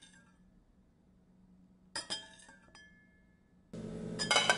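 A metal slotted spoon clinking against a glass blender jar as cooked tomatillos are tipped in: a few sharp clinks, each with a short ring. A steady hiss starts near the end.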